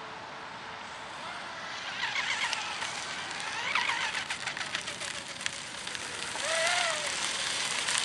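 RC outrigger racing boat running fast on the water, its motor whine rising and falling in pitch as it passes, over a steady hiss.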